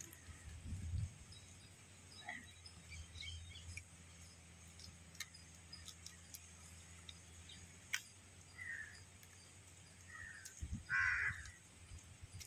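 Crows cawing a few times, the loudest call about eleven seconds in, over quiet outdoor ambience. Between the calls come a few faint crunches as shell-on crab is bitten and chewed.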